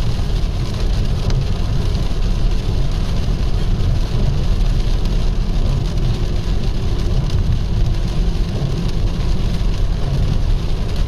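Rain falling on a moving car's roof and windscreen, heard from inside the cabin over a steady low road and engine rumble.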